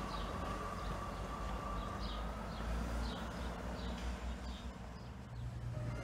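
Diesel multiple unit pulling away, a low rumble with a steady whine from its engine and transmission that fades as it draws off, while a bird chirps over and over. Near the end a lower hum comes in.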